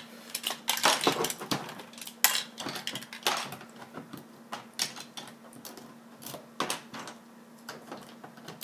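Loose plastic LEGO bricks clicking and clattering in irregular bursts as hands rummage through a pile of them.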